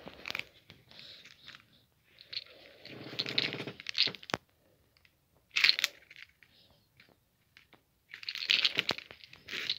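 Packaging being handled, crinkling and rustling in irregular bursts, with a sharp click about four seconds in.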